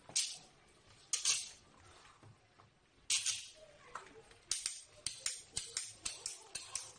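Hand ratchet cable cutter being worked on a thick cable: a few short metallic rasping strokes as the jaws are closed onto the cable, then a quick run of sharp ratchet clicks from about four and a half seconds in as the handle is pumped.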